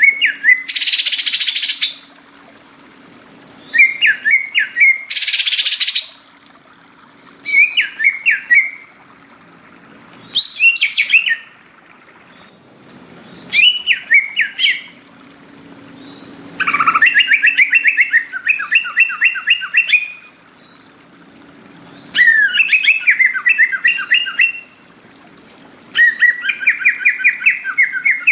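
Green leafbird (cucak ijo) singing in full voice: bursts of rapid, fluttering trilled phrases lasting one to four seconds, repeated after short pauses. Two short harsh hissing bursts come in the first six seconds.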